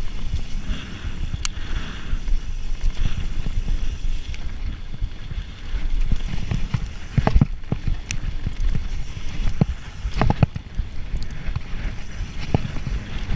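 A mountain bike ridden over a dirt trail: wind rumbling on the camera's microphone and tyres rolling over the ground. Several sharp knocks and rattles from the bike over bumps come in the second half.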